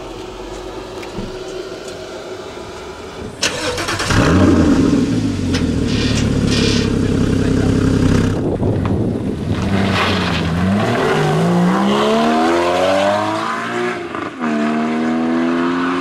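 Porsche Cayman GT4's naturally aspirated 3.8-litre flat-six starting up about three and a half seconds in, flaring and settling to a steady idle. From about eleven seconds the engine revs up hard, its pitch climbing, dips briefly at a gear change near the end, then climbs again.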